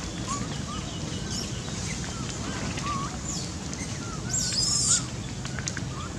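Long-tailed macaques calling: short wavering chirps come and go, and a loud shrill scream rises about four and a half seconds in and lasts about half a second.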